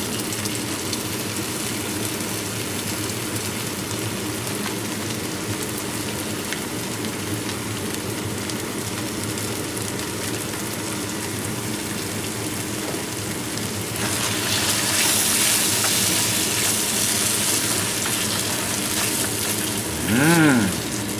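Strips of venison sizzling in a hot wok as a liquid seasoning is poured over them, over a steady low hum. About two-thirds of the way in, the sizzle turns louder and hissier.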